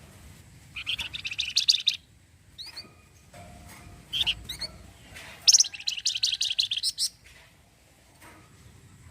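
Flamboyan songbird singing: two rapid rattling trills (the 'cretet'), each about a second long, with a few short rising chirps between them.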